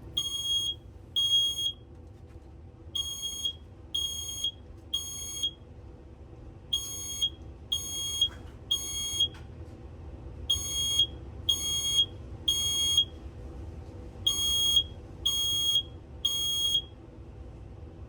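Smoke alarm sounding its temporal-three evacuation pattern, set off by smoke: high-pitched beeps in groups of three, about two a second, with a short pause between groups. It falls silent near the end.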